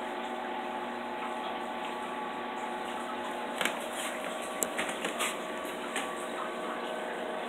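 Steady hum and water noise of a reef aquarium's circulation pumps, with a few light clicks and rustles about halfway through.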